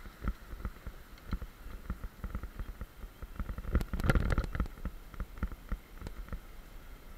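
Mountain bike rolling fast down a dirt trail, the bike rattling and knocking irregularly over bumps, with a burst of harder jolts about four seconds in.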